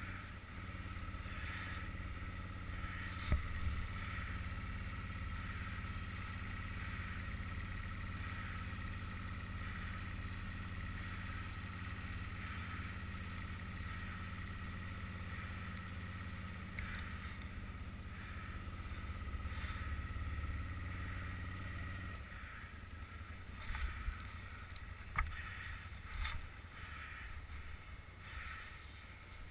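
Electric winch on a tracked Can-Am Outlander 800R ATV running under load with a steady whine, reeling in cable to haul the machine out of a snow drift. It stops about 22 seconds in, followed by a few scattered knocks.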